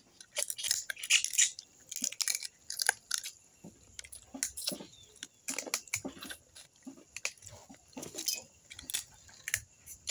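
Cooked crab being eaten by hand: irregular sharp cracks of shell being broken open, mixed with chewing.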